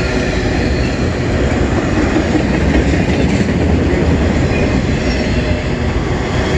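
Freight cars of a long mixed freight train, multilevel autoracks, rolling past close by: a steady, loud, deep rolling noise of steel wheels on the rails.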